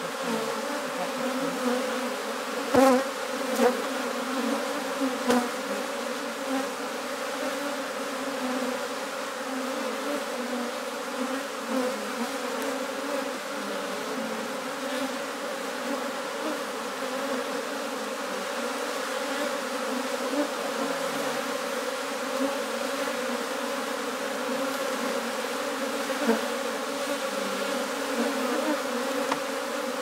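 A honey bee swarm buzzing steadily, many bees in the air as the cluster is disturbed by a gloved hand scooping into it. A few brief knocks about three to five seconds in.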